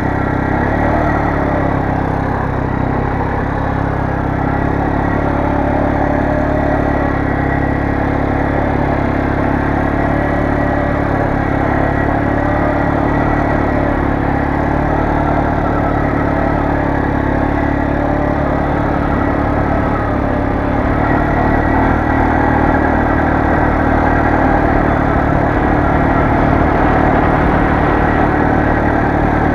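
Kymco MXU 400 ATV's single-cylinder four-stroke engine running steadily under way at a constant pace, getting a little louder about two-thirds of the way through.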